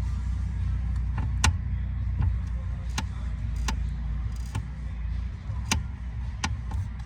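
Sharp clicks from a Kia/Hyundai steering column as the wheel is turned, about one every second, over a steadily idling engine. The clicking comes from loose steering flange bolts, not the intermediate shaft.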